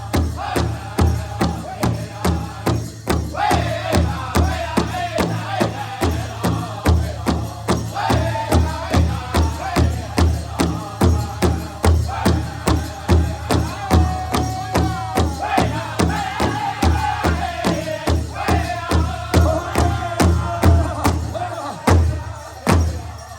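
A powwow drum group beating one big drum in a steady unison beat, about two and a half strokes a second, while the singers chant a song over it.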